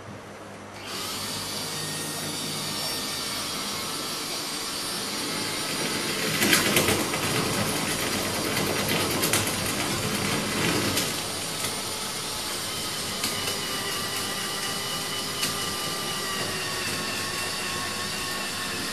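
Cordless drill running from about a second in, with a louder, rougher stretch in the middle as it bores into the wall. Toward the end the motor's pitch slowly sinks as it slows: the battery needs a charge.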